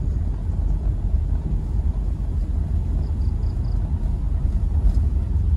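Steady low rumble of a car driving on a paved road, heard from inside the cabin: engine, tyre and wind noise. A few faint high chirps come about three seconds in.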